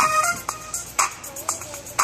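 Hip-hop backing beat for a rap: drum hits about twice a second under a short melodic line of held and gliding notes.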